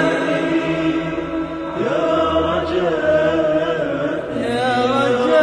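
Background music: an Arabic devotional song, with a singing voice holding long notes. It glides up to a higher note about two seconds in and wavers near the end.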